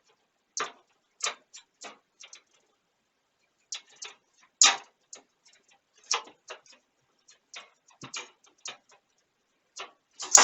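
Irregular clicks and knocks of hands working parts into a computer case, a piece being pushed that will not seat. The loudest knock comes about halfway through.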